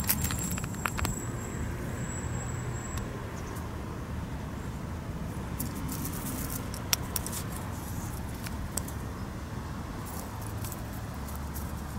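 Light rustling and crackling of dry grass as a cat pounces and paws at it, over a steady low background rumble, with a faint thin high whine in the first three seconds.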